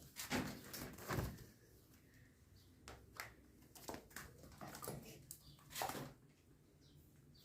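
Small animals scuffling and tussling: short, irregular rustles and bumps, with a brief faint animal cry near the end.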